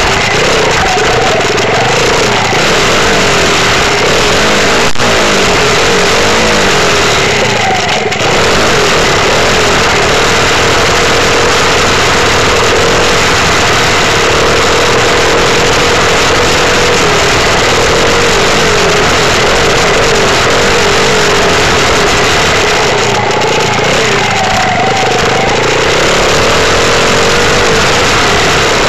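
Dirt bike engine running loud under way, its pitch rising and falling as the throttle opens and eases off.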